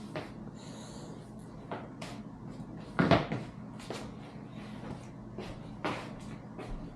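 Scattered clicks and knocks of objects being handled, the loudest a single knock about three seconds in.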